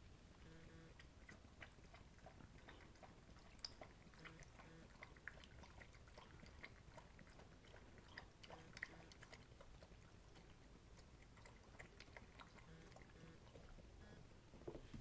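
Faint, scattered crunching and clicking of a chocolate Labrador puppy eating from a bowl, over a very quiet room.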